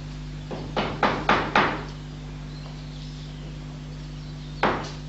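A quick run of five sharp knocks, about four a second, then a single knock a few seconds later, over a steady low hum.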